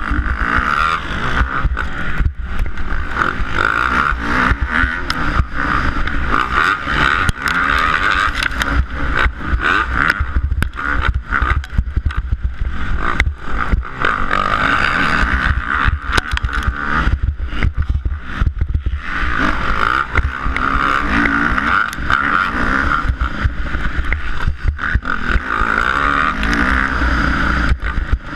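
Kawasaki KX250F four-stroke single-cylinder dirt bike engine at racing speed, its pitch rising and falling as the throttle is worked through corners and straights. Heard from a helmet-mounted camera, with heavy wind buffeting and knocks from the bumpy dirt track.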